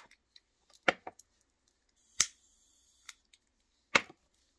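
Butane torch lighter's piezo igniter clicking three times, about a second and a half apart, with a faint hiss of gas after the second click. The lighter fails to catch: it is defective.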